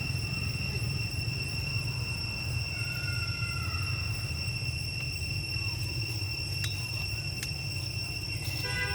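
Insects droning in a steady high tone over a steady low rumble, with two faint clicks about two thirds of the way in and a short pitched call near the end.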